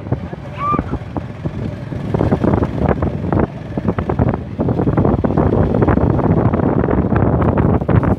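Heavy wind buffeting a microphone on a fast-moving camera, with many knocks and rattles throughout, and a short whistle about half a second in.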